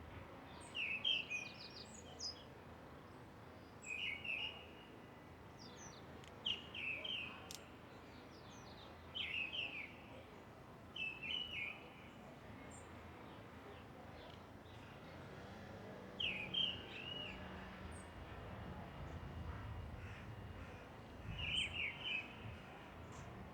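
Park ambience of birds calling, short high chirping phrases repeated every few seconds over a steady background hiss. A low rumble swells up in the second half and fades near the end.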